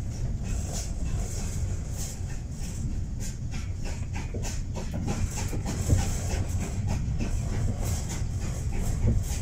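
Heritage railway carriage running along the line, heard from inside the coach: a steady low rumble from the wheels on the track, with frequent irregular clicks and rattles.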